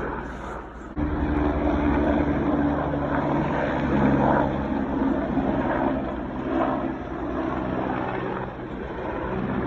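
Black Hawk military helicopter flying nearby: steady, fast rotor thumping with engine tones, coming in suddenly about a second in.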